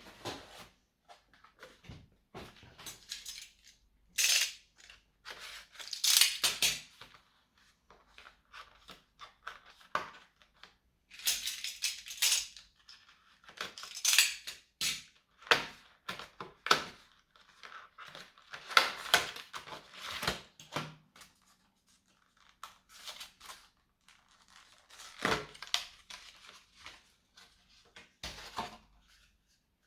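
Small hard parts of an HP laptop being handled during repair work: an irregular run of clicks, taps and scrapes, with short pauses between.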